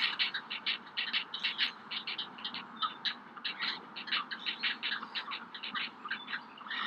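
Great blue heron chicks in the nest giving rapid begging calls: a steady run of short calls, about five or six a second.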